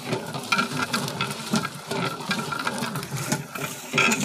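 Milky kheer mixture poured from a large metal bowl into a big aluminium deg and stirred with a long ladle: splashing liquid with scattered clinks and scrapes of metal.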